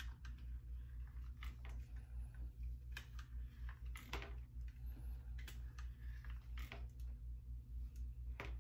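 Irregular light clicks and rustles of a flat iron being clamped on and drawn through hair while straightening it, over a steady low hum.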